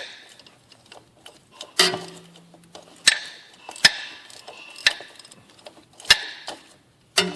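Hand tools clinking against metal while a new transfer case is bolted in: sharp separate clinks roughly a second apart, a couple of them ringing on briefly.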